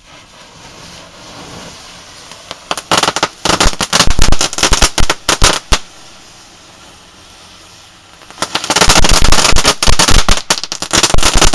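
A cluster of small disc-shaped fireworks going off on concrete: a hiss builds over the first few seconds, then a dense run of loud crackling pops begins about three seconds in, eases into hissing, and a second run of rapid pops starts about eight seconds in.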